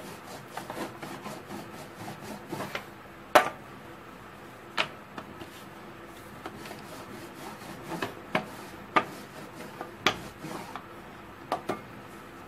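A plastic rolling pin rolling a thin sheet of dough: a quiet steady rubbing, broken by scattered sharp knocks against the surface, the loudest about three and a half seconds in and a cluster between eight and twelve seconds.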